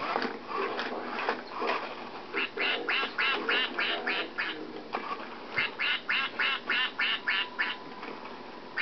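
Toy duck quacking in two quick runs of evenly spaced quacks, about four a second, with a short pause between the runs.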